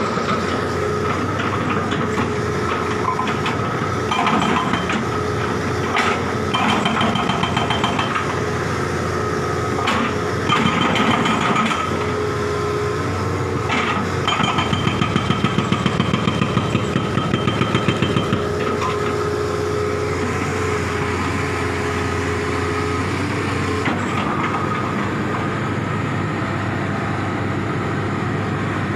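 Hitachi tracked hydraulic excavator's diesel engine running with a steady hydraulic whine, broken by several bursts of rapid pulsing. The longest burst lasts about four seconds, a little past the middle.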